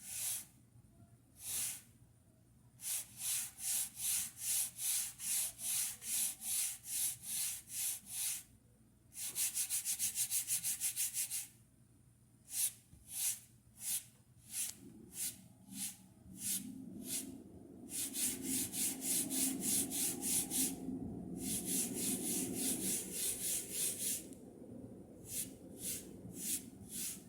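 Chalkboard eraser rubbed back and forth across a chalkboard in rhythmic swipes, about two a second, with a run of quicker, shorter strokes partway through and brief pauses between runs.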